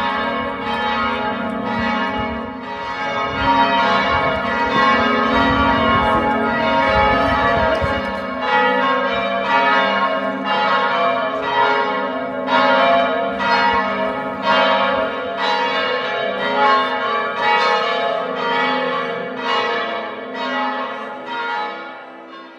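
Amiens Cathedral's church bells pealing, several bells striking over one another about once a second in a dense, ringing wash that dies away near the end.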